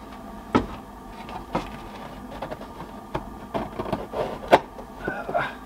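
Cedar shingle being handled and pressed into place against the wall, with a few sharp wooden knocks and taps, the loudest about four and a half seconds in, among small scrapes and ticks.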